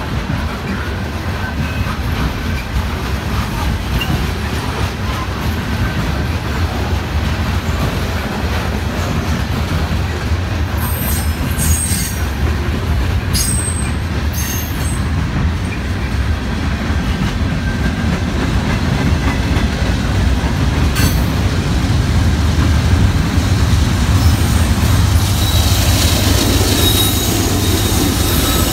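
Freight train rolling past close by: a steady low rumble of the cars with wheel clatter, broken by brief high wheel screeches a little before halfway and again later. In the last few seconds a sustained high wheel squeal rises as a Norfolk Southern diesel locomotive in the train runs by.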